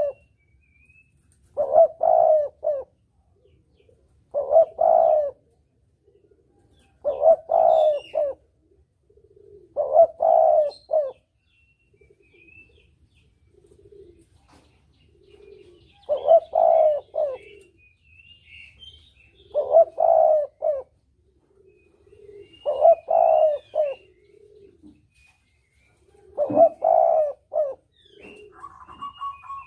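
Spotted dove (tekukur) cooing: a lure call for hunting doves. Loud phrases of several coos repeat about every three seconds, with softer, lower coos in between.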